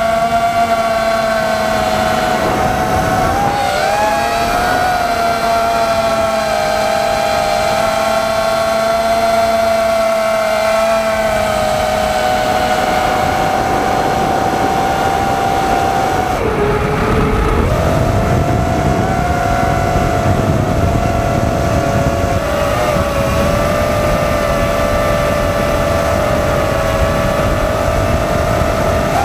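FPV drone's electric motors whining in flight, a steady high pitch that wavers slightly. About halfway through the pitch drops briefly, then comes back up.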